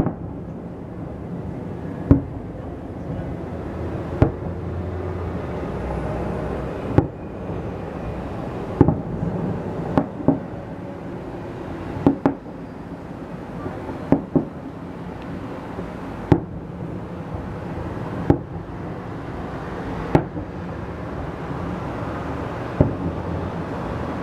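Fireworks salute shells bursting: sharp bangs about every two seconds, a few in quick pairs, over a steady background rumble.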